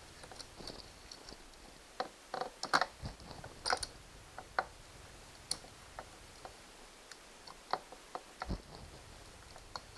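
Irregular metallic clicks and rattles of a new Oregon saw chain being worked by hand onto a Stihl 029 chainsaw's 16-inch bar and sprocket, with a few louder knocks in the middle and a dull thump near the end.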